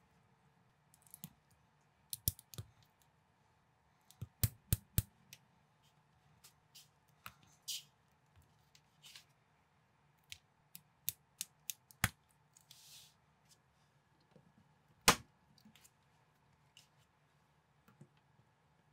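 Small plastic building bricks clicking and snapping together as pieces are pressed on by hand: scattered sharp clicks, with a quick cluster about four to five seconds in and the loudest single snap about fifteen seconds in.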